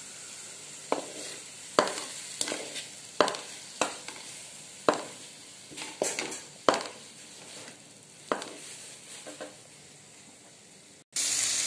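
A ladle knocking and scraping against a metal kadai, a dozen or so sharp strokes, while onions, tomatoes and green chillies sauté over a low sizzle. Near the end, after a brief break, a much louder steady sizzle of the frying.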